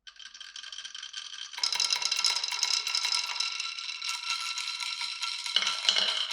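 Glass marbles rolling and clattering along a marble run track, many clicks with a light ringing. It starts suddenly and grows busier and louder about a second and a half in.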